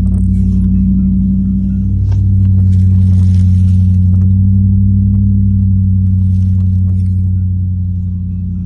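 Toyota 3UZ-FE 4.3-litre V8 heard from inside the cabin, running under steady load as a deep, even drone; its pitch shifts up slightly about two seconds in. Faint water splashing against the vehicle at moments.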